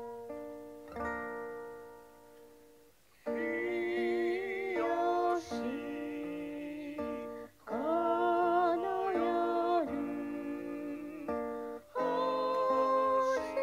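A hymn sung to acoustic guitar: plucked guitar notes alone at first, then singing voices come in about three seconds in, with short pauses between phrases.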